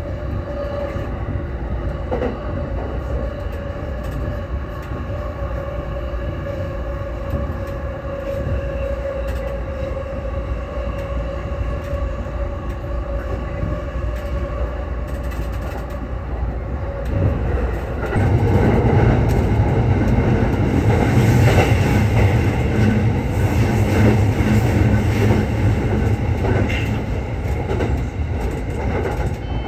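Electric commuter train running on the line: a steady running noise with a held whine of several tones. From about 18 seconds in it becomes louder and rougher, with a heavier low rumble of wheels on rail.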